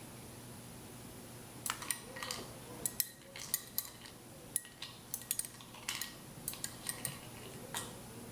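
Utensils clicking and clinking against a dish in an irregular string of sharp clicks. They start about two seconds in and stop shortly before the end.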